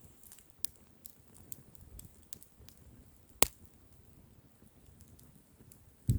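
Wood fire crackling sparsely: scattered small snaps, with one louder pop about three and a half seconds in.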